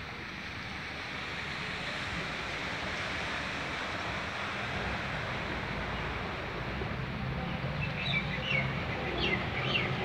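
Steady outdoor rushing noise with a low hum under it; from about eight seconds in, a bird chirps several times in quick, short falling notes.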